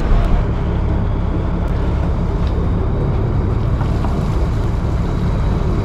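Fishing trawler's engine running with a steady low drone, with wind and sea noise over it.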